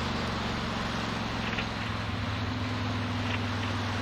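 Honda VTX 1300 V-twin motorcycle engine running steadily at cruising speed, with wind rushing past the microphone.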